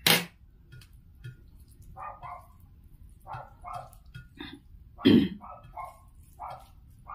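A dog barking repeatedly in the background in short clusters of yaps. Two louder sharp knocks stand out, one at the start and one about five seconds in.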